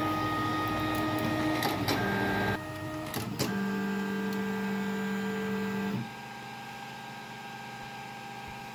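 Tronxy P802MA 3D printer's stepper motors driving the print head and bed, a steady whine that changes pitch with each move, with a click about three seconds in. The motors stop about six seconds in, leaving a quieter steady hum.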